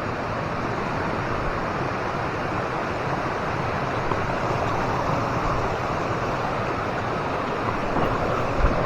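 Steady rush of a waterfall's falling water, with a brief knock near the end.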